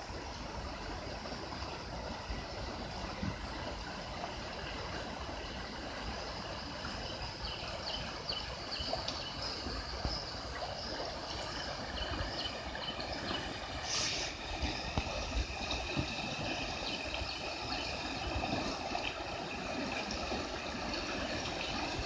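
Steady rush of river water running over shoals, with birds chirping now and then, more often in the second half.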